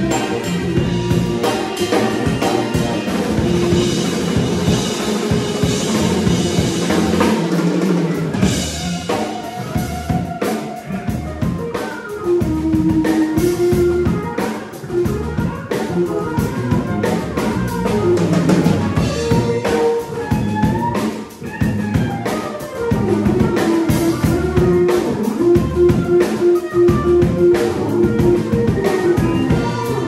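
Live soul-jazz band playing an instrumental groove: drum kit with busy cymbals and snare, electric bass, electric guitar, keyboard and horns, with a melody line moving up and down over a steady beat. The sound dips briefly about two-thirds of the way through, then comes back at full level.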